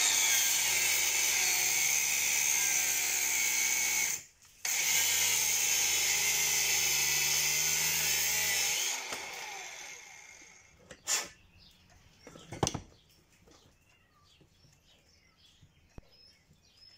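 Angle grinder with a cut-off disc cutting through a steel-braided rubber hydraulic hose, running loud and steady with a short break about four seconds in. It is switched off near nine seconds and spins down, and two sharp knocks follow.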